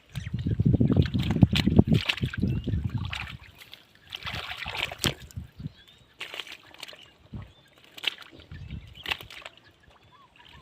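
Hands churning shallow muddy water, loudest over the first three seconds or so, then scattered smaller splashes and drips.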